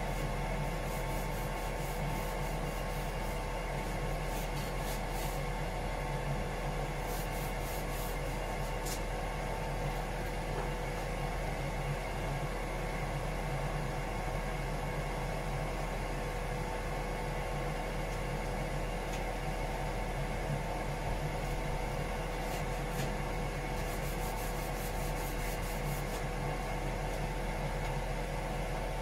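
Steady hum of engine-room machinery with a held tone over a low drone. Faint rapid scratching strokes of hand sanding come for a few seconds early on and again near the end.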